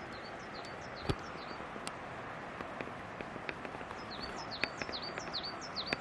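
Steady rush of a waterfall, with a small bird singing short down-slurred high notes: a few near the start, then a quicker run in the second half. A single sharp knock about a second in.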